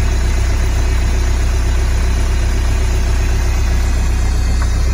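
Skid loader engine running steadily, supplying hydraulic oil to a machine that is slowly turning a hydraulic cylinder's barrel.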